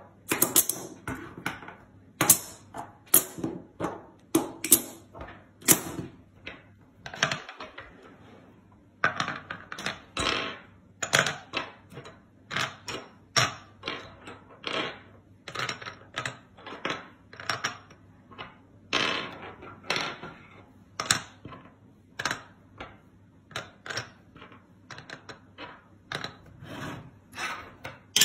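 Small hard plastic puzzle pieces and beads being picked up, tapped down on a wooden table and clicked into plastic trays: an irregular string of sharp clicks and taps, one or two a second.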